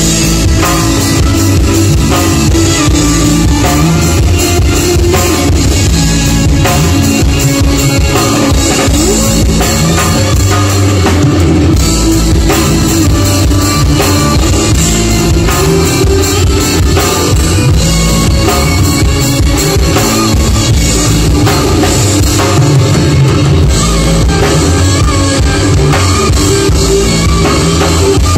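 Rock band playing loud and continuously on stage: drum kit, electric bass and electric guitars.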